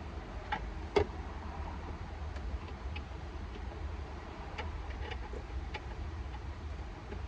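Light, scattered clicks and ticks from a Torx bit and vice grip turning out a screw above the CAS module inside the dash, with one sharper click about a second in, over a low steady hum.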